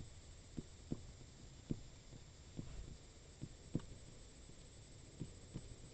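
Faint, irregular clicks and taps of a computer mouse, about eight of them, its button pressed and released for each stroke as letters are drawn by hand, over a low hum.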